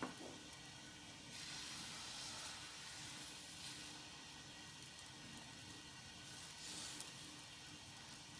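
Qatayef batter sizzling faintly in a hot non-stick pan as it cooks, a soft steady hiss that swells briefly a couple of times.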